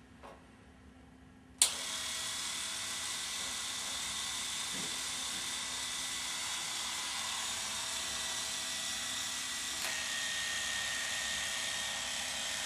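Electric beard trimmer switched on about a second and a half in, then buzzing steadily, its tone shifting slightly about ten seconds in.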